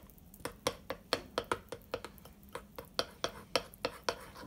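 Metal spoon stirring a thick icing-sugar glaze in a ceramic bowl, clinking against the bowl's sides in a quick, even run of about four taps a second.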